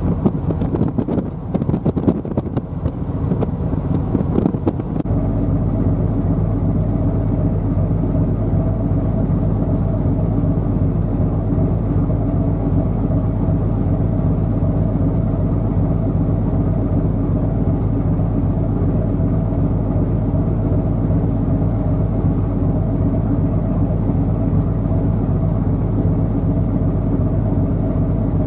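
Wind buffeting the microphone for about the first five seconds, then a steady low drone of a ship's diesel engine, a constant hum of several low tones that does not change.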